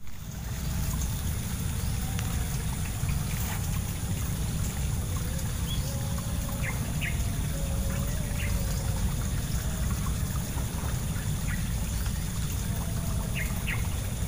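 Riverside ambience: a steady low rumble throughout, with short bird chirps here and there.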